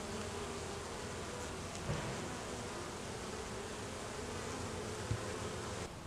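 Honey bees flying around a hive, a steady wavering buzz, with a soft knock about two seconds in.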